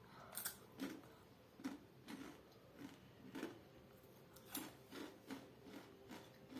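Faint crunching of Takis rolled tortilla chips being chewed, short crisp crunches about twice a second.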